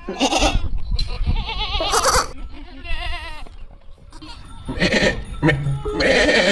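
Goats bleating: several loud calls in a row, some with a quavering, wobbling pitch, over a steady low rumble.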